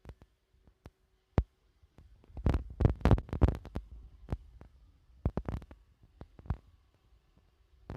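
Irregular knocks and dull thuds, a dense cluster about two and a half to four seconds in and a few more later, typical of a Roomba robot vacuum bumping and scraping at the edge of a thick new carpet that it struggles to climb onto.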